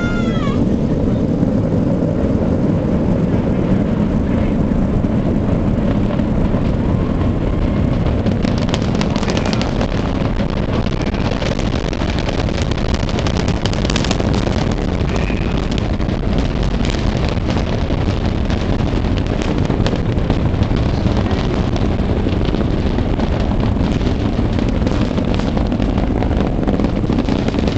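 Space Shuttle launch heard from a distance during ascent: its two solid rocket boosters and three main engines give a loud, steady low rumble, with sharp crackling coming in from about eight seconds in.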